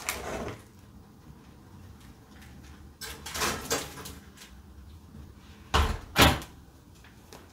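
A kitchen oven being loaded: a rattling, scraping stretch as the door is opened and the baking dish slid in, then the oven door shut with two sharp knocks about six seconds in.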